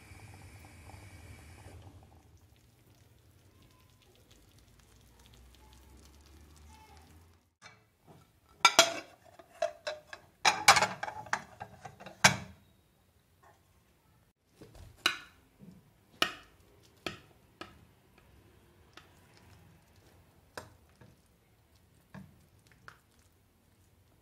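Ceramic bowl and plate clattering and knocking together as a bowl of rice is upturned onto a plate. This is followed by scattered lighter clinks of a metal spoon against a glass baking dish.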